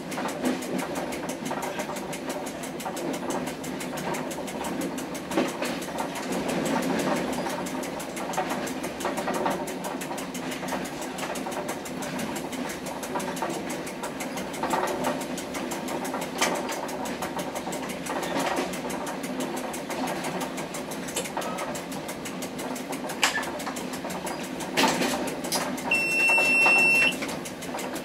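A rail vehicle running along the track, heard from the cab: a steady engine drone with occasional sharp clicks from the wheels, and a short high-pitched beep near the end.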